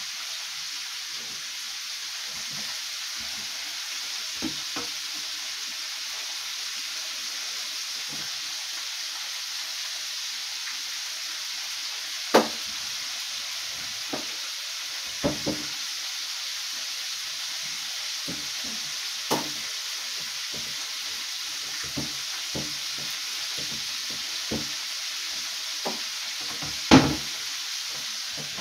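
Flour-dredged chicken drumsticks frying in hot oil: a steady sizzle, broken by several sharp pops, the loudest near the end.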